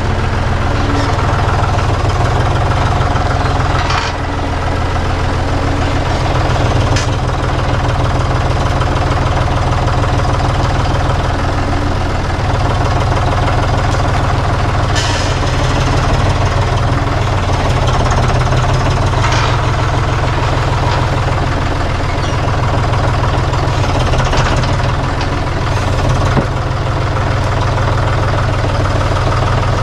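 Engine of a piece of heavy equipment running steadily at a low, even speed while it moves a large log into place, with a few sharp knocks or clanks now and then.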